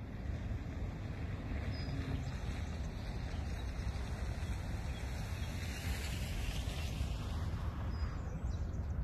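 Outdoor ambience: a steady low rumble with a fainter hiss above it.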